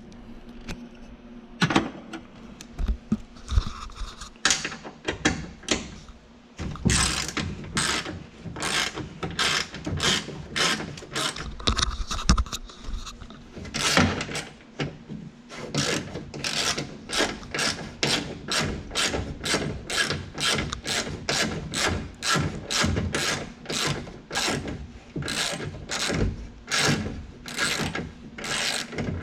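Hand ratchet with an 8mm socket clicking through repeated back-and-forth strokes, backing out the mirror mounting bolt on a 1990s Ford truck door. A few scattered clicks come first, then about six seconds in it settles into a steady run of about two strokes a second.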